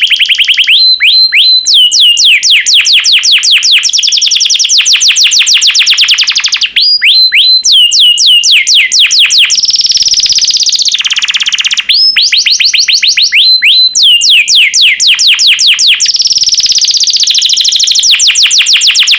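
Yellow canary singing: fast trills of rapidly repeated, downward-sweeping high notes, one phrase after another, with brief breaks about 7 and 12 seconds in.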